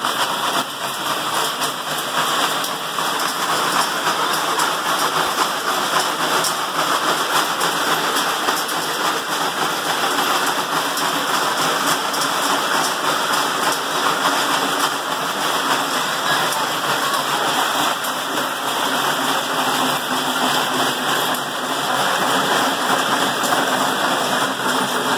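Several dogs running hard on slatmills: a dense, steady clatter of the slats and rollers turning under their pounding feet.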